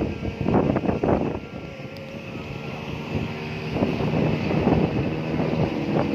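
A large vehicle, a bus or a train, running past with a steady low engine tone and wind noise on the microphone. The sound is gusty at first, drops back a little under two seconds in, and builds again from about four seconds in.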